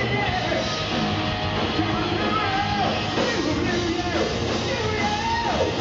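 Hard rock band playing live at full volume, recorded from within the audience. Several falling slides in pitch stand out in the second half.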